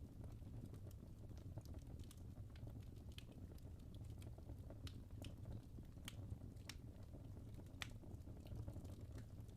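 Wood fire in a fireplace, logs burning with a low rumble and scattered sharp crackles and pops, a couple of them louder than the rest.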